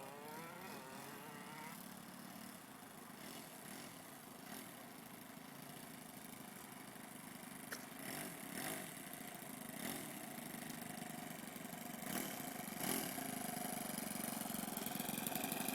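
Model airplane engine on a Kyosho Pitts S-2 running steadily, growing louder toward the end.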